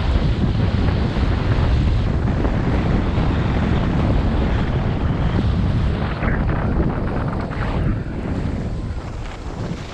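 Wind buffeting the microphone of a camera carried by a skier moving downhill, a steady low roar, with the hiss of skis on packed snow; it eases off near the end.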